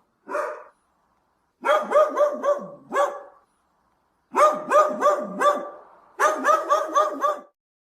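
A dog barking: one bark, then three quick runs of several barks each with short pauses between.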